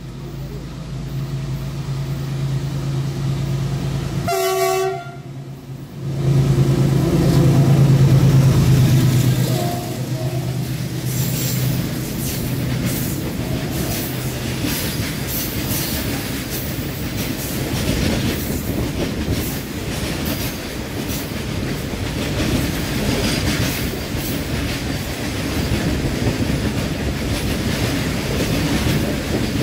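GE WDG-4G diesel freight locomotive approaching with a steady engine drone and sounding a short horn blast about four seconds in, loudest as it passes close by. Its long rake of covered BCNA wagons follows, the wheels rumbling and clicking over the rail joints.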